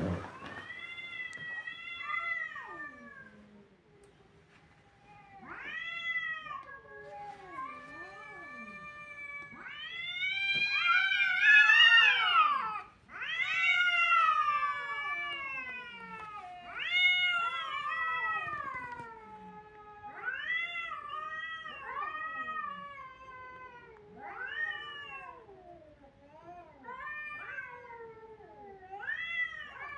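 Cats caterwauling: a run of long, drawn-out yowls, one after another, each rising and falling in pitch, loudest about a third of the way in.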